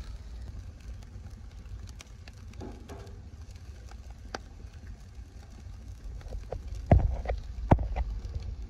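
Charcoal grill with food cooking over open flames, crackling with scattered sharp pops over a low steady rumble. The two loudest pops come near the end, less than a second apart.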